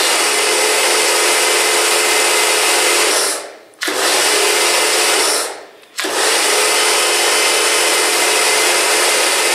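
Kärcher K2 electric pressure washer running, with a steady motor-pump hum and the hiss of the water jet from the lance on its soft spray setting. Twice, about three and a half and five and a half seconds in, the sound winds down over half a second and then starts again abruptly.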